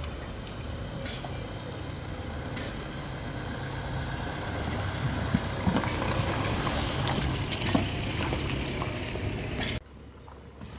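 Low engine hum of a van and a small car driving slowly past over a flooded, potholed dirt road, with scattered knocks and clicks. The sound grows louder through the middle and drops off abruptly near the end.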